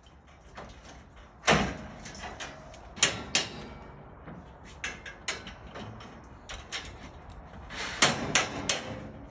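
Metal scaffold guardrail post and clamp (GuardAid on OCTO scaffolding) knocking and clanking as it is handled into place: a string of sharp metal clanks, the loudest about a second and a half in, two close together around three seconds, and three quick ones near the end.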